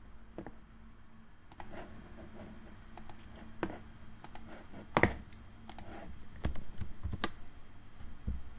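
Irregular clicks from a computer keyboard and mouse, a few much sharper and louder than the rest.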